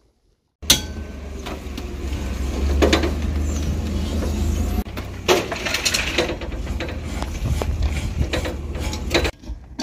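Hand tools knocking and clanking against a boat's propeller and shaft as the props are being taken off, several separate sharp metal knocks over a steady low rumble.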